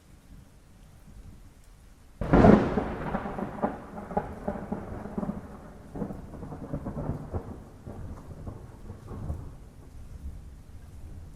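Thunderclap in a thunderstorm: a sudden sharp crack about two seconds in, then a rolling, crackling rumble that slowly fades over the next several seconds, over a steady hiss of rain.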